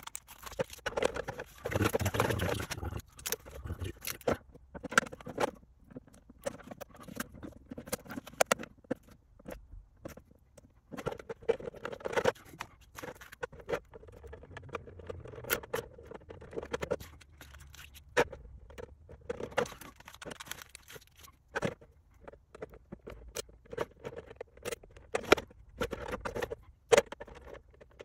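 Hands peeling a decal off its backing sheet and pressing it onto a clear polycarbonate (Lexan) RC car body: irregular small clicks, taps and scraping, with a denser rustle about two seconds in.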